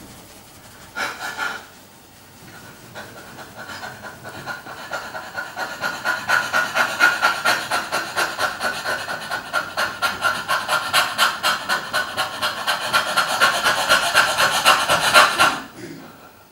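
A woman panting fast through her open mouth, several breaths a second in an even rhythm. The breaths grow louder over several seconds and stop abruptly near the end. This is rapid forced breathing of the holotropic-breathwork kind.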